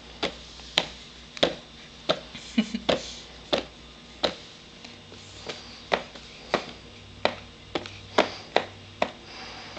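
Spoon clicking and tapping against a small glass baby-food jar while scooping, a string of sharp clicks about two a second, irregularly spaced.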